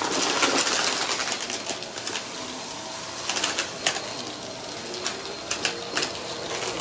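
Upright vacuum cleaner running steadily as its floor head is pushed over a rug, with sharp crackles and clicks of debris being sucked up several times in the second half.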